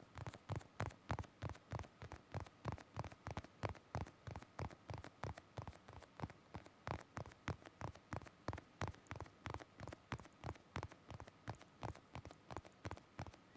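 ASMR tapping: a steady run of quick light taps, about four to five a second.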